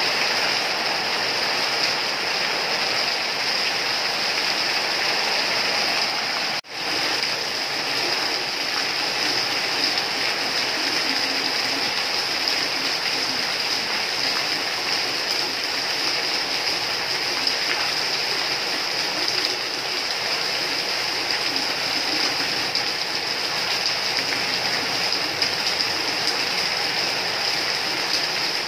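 Rain falling steadily, an even hiss of water. The sound cuts out for an instant about six and a half seconds in.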